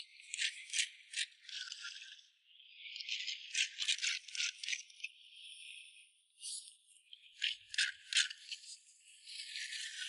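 A small hand blade scraping wild laver seaweed off wet rock: quick, dry scratching strokes in runs, with short pauses between them.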